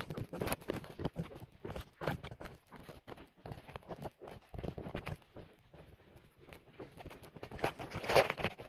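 Footsteps of several people walking on a paved trail, an uneven run of taps and scuffs, with a brief louder noise near the end.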